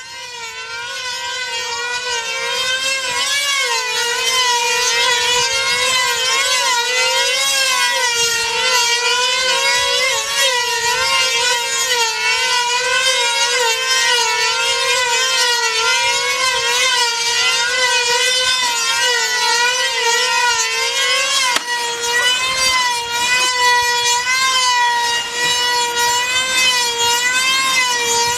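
Control-line combat (F2D) model planes, their small two-stroke glow engines screaming at very high revs as they circle on their lines, giving a loud continuous whine whose pitch rises and falls about once a second. A single sharp tick is heard about three-quarters of the way in.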